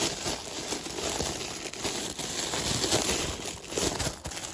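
Shipping packaging crinkling and rustling as a plush toy is worked out of it, an irregular crackly rustle with no steady rhythm.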